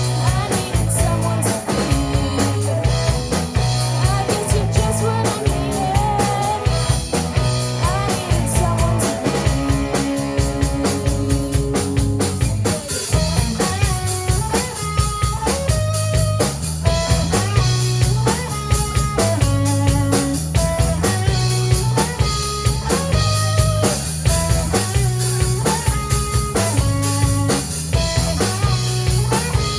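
Rock music played on drum kit, guitar and bass, with a steady beat and a repeating guitar figure.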